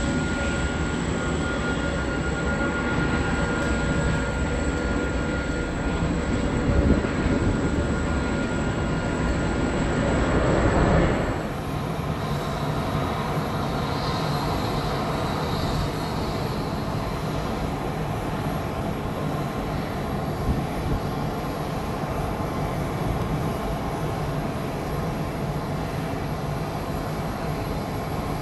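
Airbus A330 jet engines running, a steady rush with a thin high whine, swelling to a peak about a third of the way in. The sound then changes abruptly to a different, slightly quieter steady jet rush that carries on.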